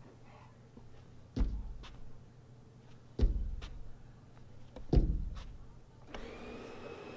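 Three heavy thumps against a sliding glass door, each with a short rattle and a lighter click after it, evenly spaced about two seconds apart. Near the end a steady hum with a few held tones comes in.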